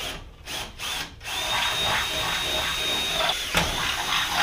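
Cordless drill boring pilot holes through a truck's metal radiator support bar. A few short stuttering bursts come first, then a steady high motor whine from about a second in, with a brief break about three and a half seconds in.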